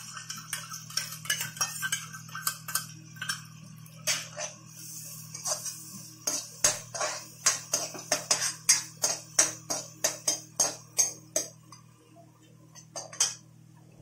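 Steel spoon stirring a wet onion, tomato and cream mixture in a kadhai, scraping and clinking against the pan in quick strokes, fastest and loudest in the middle at about three a second, with a short lull near the end. A steady low hum runs underneath.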